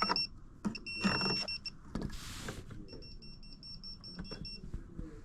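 High-pitched electronic beeping: two longer beeps, then a quick run of short beeps at about five a second. Clicks and a brief hiss of handling come between the beeps.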